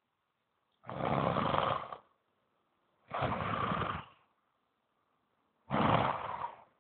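A man snoring: three snores, each about a second long, coming about two and a half seconds apart.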